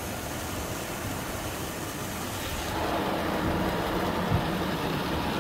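Water and soap spraying onto a car's windshield and body in an automatic car wash, heard from inside the car: a steady hiss and rush that grows fuller about halfway through.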